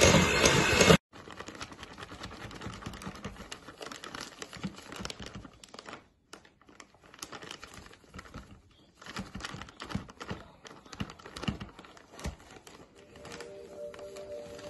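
Plastic bag of powdered sugar crinkling and rustling as it is tipped and poured into a plastic measuring cup, with irregular small clicks and taps of plastic. Before that, a loud electric hand mixer runs and cuts off suddenly about a second in.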